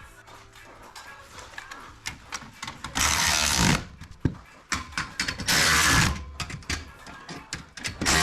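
Cordless power driver running in three short bursts, about two to three seconds apart, driving fasteners into garage door hardware, with scattered clicks and knocks of handling between the bursts.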